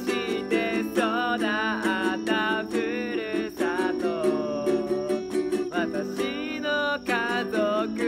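A Christian worship song: a voice singing a melody over a plucked string accompaniment.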